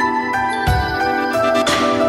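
Background music: pitched bell-like mallet notes over held chords, with a low beat landing about every two seconds.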